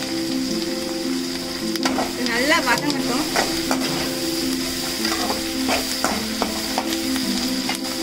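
Chopped onions, garlic and curry leaves sizzling as they fry in hot gingelly (sesame) oil in a metal pan, with a perforated steel ladle stirring them and scraping and clicking against the pan several times. Soft background music plays underneath.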